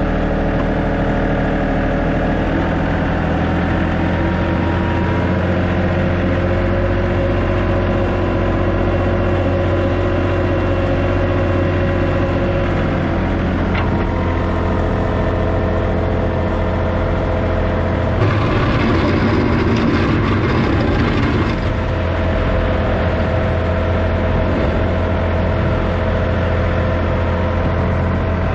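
John Deere 2038R compact tractor's three-cylinder diesel engine running steadily as its box blade pushes snow. For about three seconds past the middle a louder rushing noise rises over the engine.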